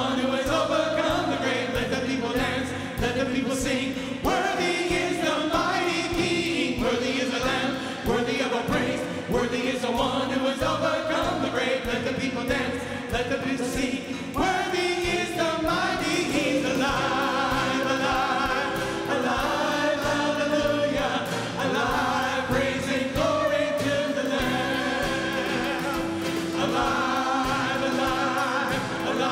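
A live worship band plays a contemporary worship song, with men and women singing together over guitars, keyboard and drums.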